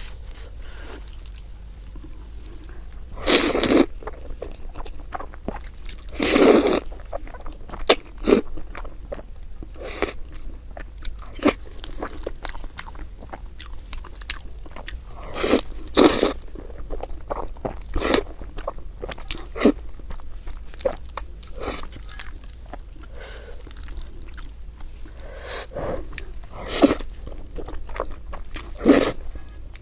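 Close-miked eating: crunchy bites and chewing at irregular intervals, with a handful of louder crunches among softer ones.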